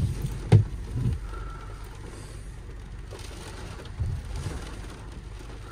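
Inside a car in the rain: a few soft thumps in the first second and again about four seconds in, over a steady hiss of rain on the car, with a short faint tone about a second and a half in.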